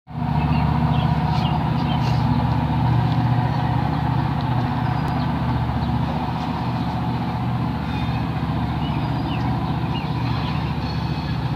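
A steady low drone of an idling engine, with a few faint high chirps scattered over it.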